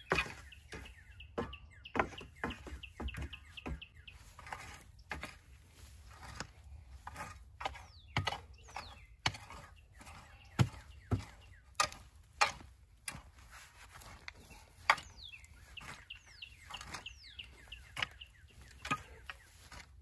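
Garden rake tines scraping and scratching through loose compost: an irregular run of short scrapes and knocks, a few each second.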